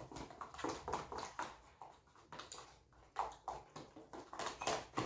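Homemade slime being kneaded and stretched by hand, giving off irregular small sticky clicks and squelches.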